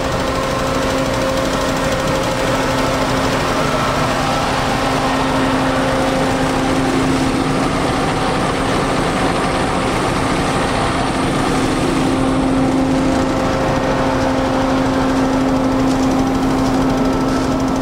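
Engine of a road-construction machine running steadily at a constant pitch.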